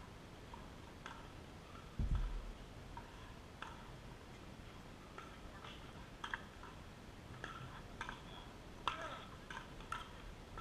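Pickleball rally: irregular sharp pops of paddles striking the plastic ball, with a dull low thump about two seconds in.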